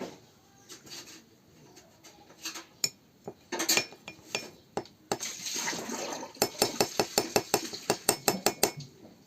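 A metal spoon clinking against a glass container: scattered knocks and a brief scrape, then a quick, even run of clinks near the end, about seven a second, as the mixture is stirred.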